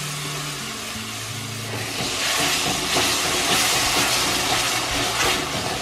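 Tomato purée sizzling in hot oil and onion paste in a steel kadhai, a steady frying hiss that grows louder about two seconds in as it is stirred in with a spatula.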